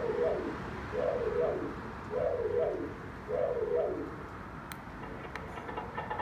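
Aftermarket external sound speaker on a Tesla Model S playing a novelty sound clip: a short mid-pitched rise-and-fall hoot, repeated four times about a second apart.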